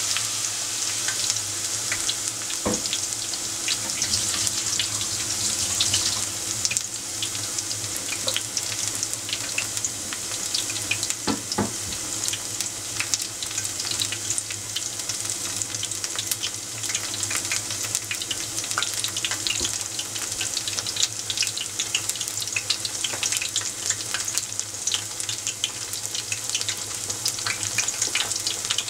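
Tempura frying in a pot of hot oil: a steady sizzle with many small crackles and pops, densest over the first few seconds just after another battered piece goes into the oil, then continuing as separate crackles. Two soft knocks sound about 3 and 11 seconds in.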